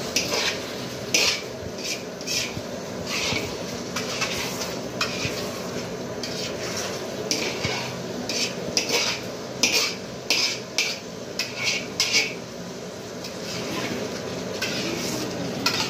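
Long flat metal spatula scraping and clanking against a large black metal wok as minced meat is stir-fried (bhuna), in short, irregular strokes that come thickest about halfway through, over a steady frying sizzle.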